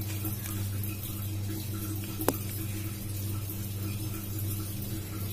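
Steady low hum with one sharp click about two seconds in.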